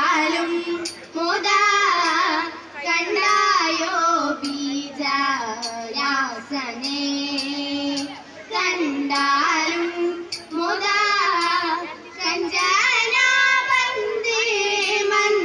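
Girls singing a melodic dance song live into microphones, heard through a PA, in long sung phrases with gliding pitch. Faint sharp clicks keep a steady beat under the voices.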